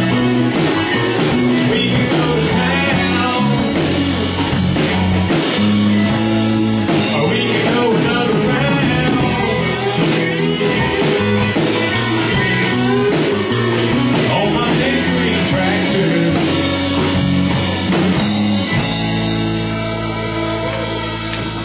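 Live country band playing an instrumental outro with guitar and drum kit, then settling onto a held final chord with a cymbal wash about nineteen seconds in.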